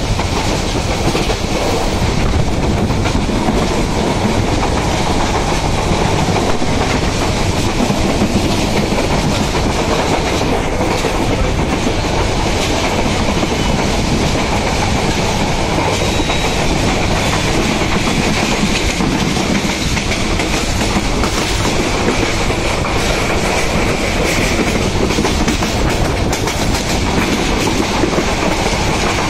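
Passenger train running steadily at speed, heard from inside a carriage at the window: a continuous loud rumble of the wheels on the rails, with the clickety-clack of the wheels over the rail joints.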